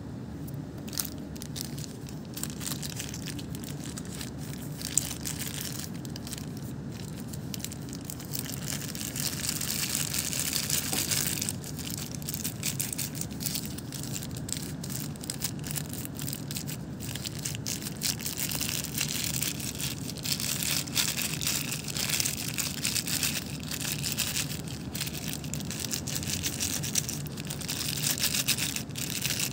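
Thin clear plastic bag crinkling and crackling in a hand as sauce is squeezed out of it, in dense irregular crackles over a steady low hum.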